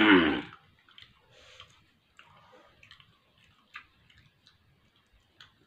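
A brief vocal sound falling in pitch right at the start, then faint, scattered clicks and smacks of people chewing jalebi and picking pieces from a plate.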